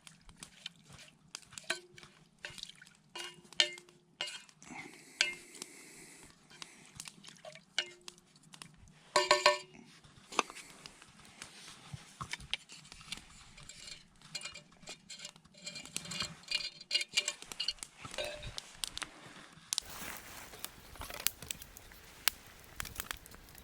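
Metal cookware clinking and knocking as it is handled, with a cluster of loud, ringing clanks about nine seconds in. Near the end the sound changes abruptly to a steady hiss with scattered taps.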